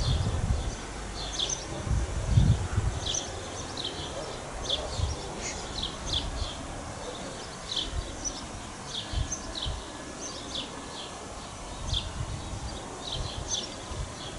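Small birds chirping, short high calls repeated every half second or so. Gusts of wind buffet the microphone in the first few seconds and briefly again later.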